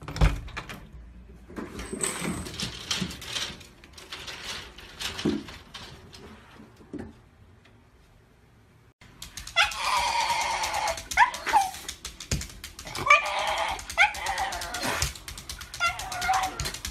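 A few knocks and rattles, then a dog whining and yelping in a run of loud, high cries that bend up and down in pitch through the second half. The dog is a black-and-tan Shiba Inu.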